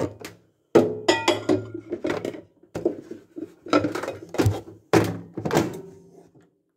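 A run of irregular thunks and knocks from loading a microwave oven and shutting its door, with a brief rattle about a second in.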